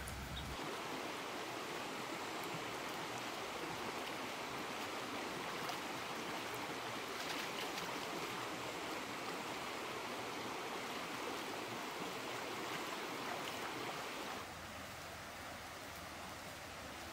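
Shallow stream running over rocks: a steady rush of flowing water. About three seconds before the end it cuts to a quieter, thinner woodland background.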